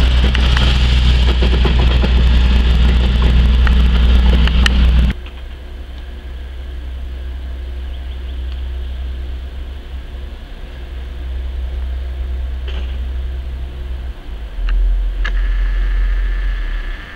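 A loud rumble with hiss that cuts off abruptly about five seconds in, then a diesel shunting locomotive's engine running steadily as it moves a pair of electric locomotives, growing louder near the end.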